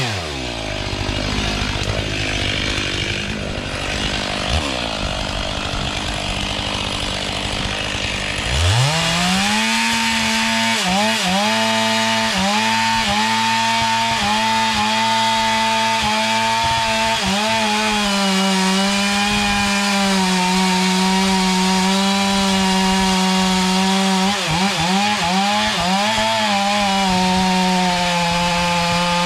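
Two-stroke chainsaw cutting wood. For the first eight seconds or so the engine is pulled down low under load. It then revs up to a high, steady pitch that dips briefly a few times as the chain bites.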